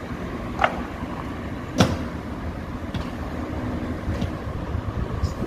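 Honour guards' boots striking the pavement in a slow, even ceremonial march, about one step every second and a bit, the strongest step about two seconds in and the later ones fainter, over a steady background rumble.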